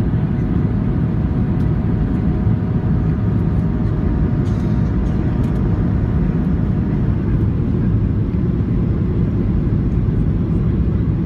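Steady cabin rumble of a Boeing 737-800 in flight on approach, with its flaps extended: CFM56-7B engine noise and airflow, heard from inside the cabin. A faint higher hum rides on top and fades away about two-thirds of the way through.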